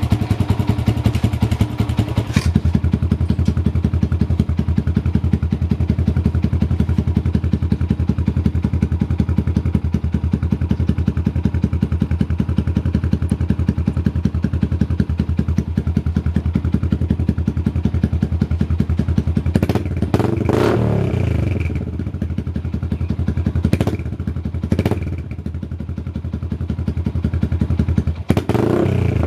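Yamaha Sniper 150's single-cylinder four-stroke engine idling through a replica Akrapovic aftermarket exhaust with a steady, fast, even pulse. In the last third it is blipped a few times, quick revs that rise and fall back to idle, with another rev starting at the very end.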